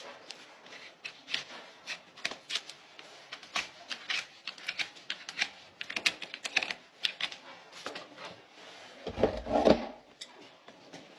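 Hoof-trimming tools cutting and paring the horn of a Shire horse's hoof: a string of irregular sharp clicks and snips, two or three a second. About nine seconds in comes a louder, deeper scrape and thud lasting about a second.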